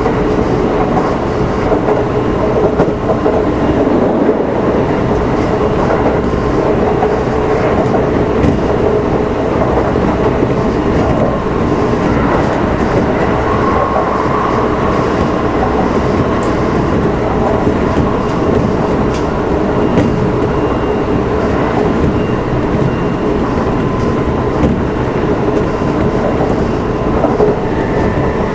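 Kintetsu 1259-series electric train running at speed, heard inside its motor car: a steady loud rumble of wheels on rail and the traction motors, with occasional wheel clicks over rail joints. Near the end a steady high tone comes in.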